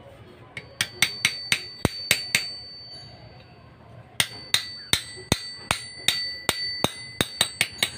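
A ribbed steel rod struck against a new bearing to drive it down onto an R175 diesel engine's camshaft beside the cam gear: sharp metal-on-metal strikes that ring. About seven strikes come from about a second in, then after a pause a dozen or so more through the second half, roughly three a second.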